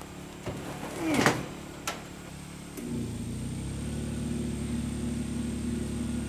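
A few clicks as the clothes dryer is handled and switched on. About three seconds in, a steady engine hum from the portable generator rises and holds as it takes the dryer's load. The owner takes this for the generator being overloaded.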